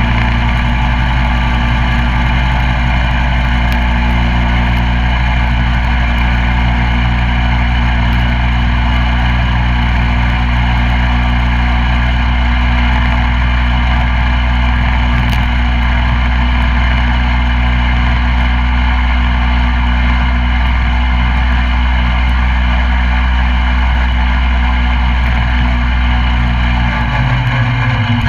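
Coleman CT200U mini bike's 196cc single-cylinder four-stroke engine running at a steady speed, its low note shifting near the end.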